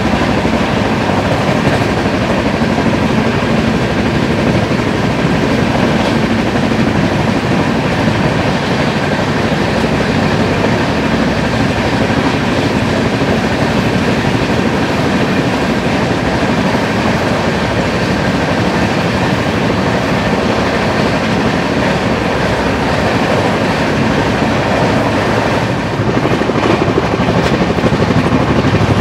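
Golden Temple Mail passenger train running on the line: a steady rumble of the coach's wheels on the rails with some clickety-clack. It grows a little louder about three seconds before the end.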